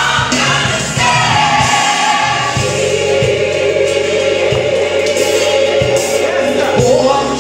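Gospel choir singing over a live band with bass and drums; about two and a half seconds in the voices settle on one long held note.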